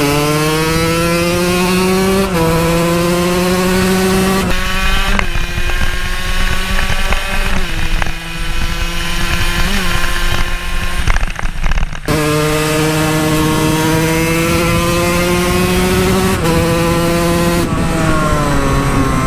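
KTM SMR 125 two-stroke supermoto engine pulling hard under the rider: its note climbs and drops sharply at each upshift, early on and again near the end. Midway it runs lower and steadier, with a burst of wind rush on the mic, and it falls away as the bike slows at the end.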